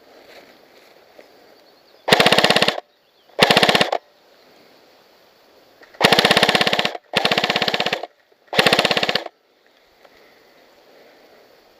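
Airsoft electric gun firing five short full-auto bursts, each a rapid, even rattle of shots lasting half a second to a second, with brief pauses between.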